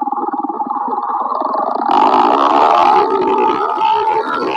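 Small single-cylinder motorcycle engine running hard at high revs. About two seconds in it grows louder and harsher.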